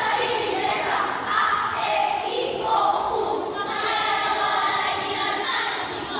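Many children's voices reciting together in chorus in Filipino (sabayang pagbigkas), a continuous chanted group delivery with no breaks.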